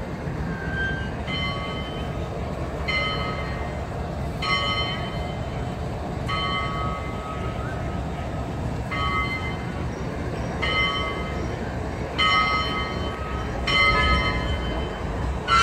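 Locomotive bell ringing in slow, even strokes about every second and a half, each stroke ringing on briefly, over a steady low rumble.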